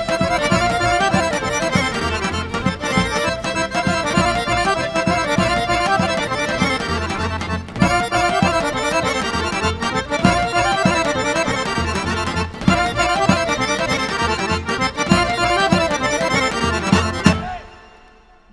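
Macedonian folk-dance music led by accordion over a steady beat, ending abruptly on a final chord near the end and then dying away.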